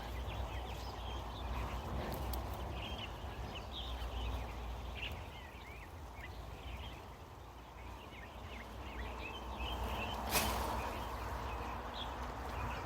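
Small birds chirping in short, scattered calls over a low background rumble, with one sharp knock about ten seconds in.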